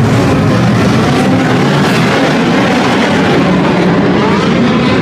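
A pack of midget race cars running together around an indoor dirt oval, several engines at high revs whose pitches rise and fall as the cars come off and onto the throttle through the turns, in an enclosed arena.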